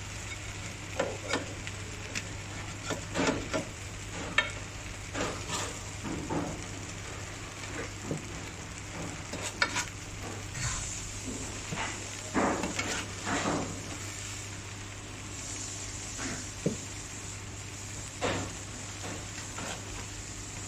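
Food frying in a pan with a steady sizzle, broken by frequent clinks, knocks and scrapes of metal utensils. A steady low hum runs underneath.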